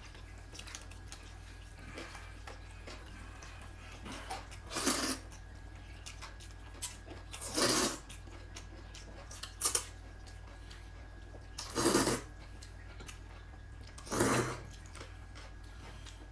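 Five short clattering noises, two to three seconds apart, from a meal being eaten at a table.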